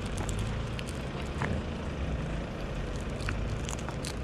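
A car running slowly close by, a steady low rumble.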